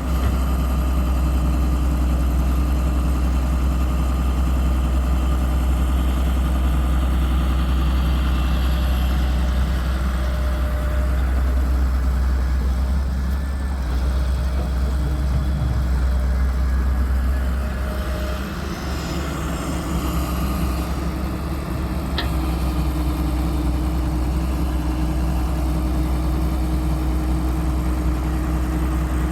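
Heavy diesel engine running steadily with a deep hum, easing off slightly a little past halfway, with a brief sharp tick about three quarters of the way through.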